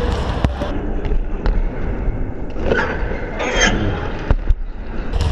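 Basketballs bouncing on a sports hall floor, a few sharp thuds, under muffled rubbing and scraping from the GoPro action camera being handled.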